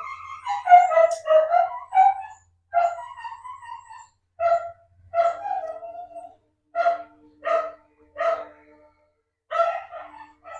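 An animal calling over and over in short, pitched bursts: a quick run at first, then about one call every second or less.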